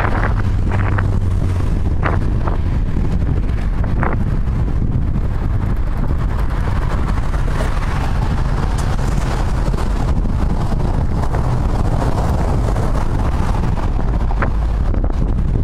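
Wind buffeting an action camera's microphone on a moving bicycle, a steady loud rumble, with highway traffic passing alongside and a few short ticks.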